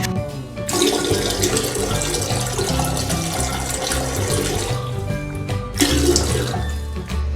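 Running water rushing loudly: it starts just under a second in, stops about five seconds in, and comes back briefly around six seconds. Background music with a steady bass line plays underneath.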